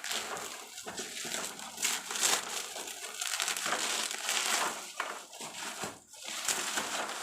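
Packaging crinkling and rustling as it is handled, an uneven run of crackles and rustles.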